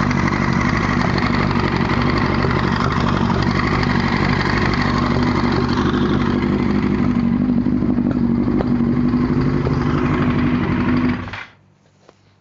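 1998 Yamaha R1 inline-four engine running steadily with its clutch removed, with a weird knocking that the owner places behind the clutch and suspects may come from a wobbling chain. The engine shuts off suddenly near the end, leaving near silence and a single small click.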